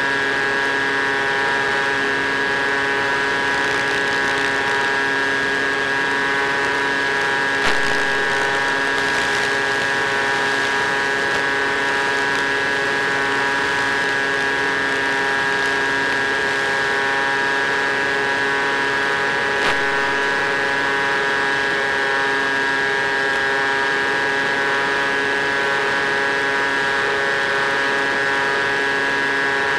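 Easy Star model plane's electric motor and propeller running at steady throttle: a constant, even hum with a whine. There is a brief click about 8 seconds in and another about 20 seconds in.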